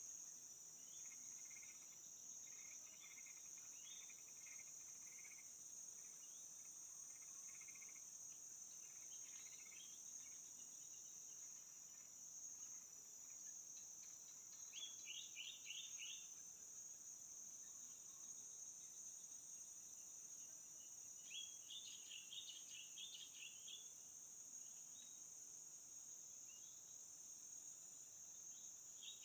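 Faint, steady high-pitched drone of insects. Short runs of rapid chirps come and go over it, most clearly about halfway through and again about three-quarters of the way.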